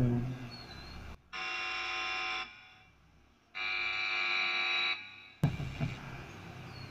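Steady electrical buzz through the guitar's digital amp-simulator rig, heard twice for just over a second each, starting abruptly, as effects presets are switched on the laptop with the strings not played.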